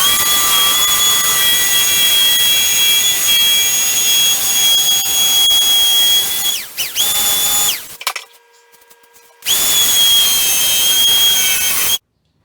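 Electric power tool cutting the traced seat shape out of plywood: a steady high motor whine with cutting hiss. It dips and picks up again about seven seconds in, stops for a second or so, runs again, then cuts off just before the end.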